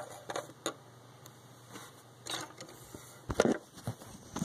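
Handling noise: a few scattered clicks and knocks of LEGO pieces and the handheld camera being moved, the loudest a dull knock about three and a half seconds in.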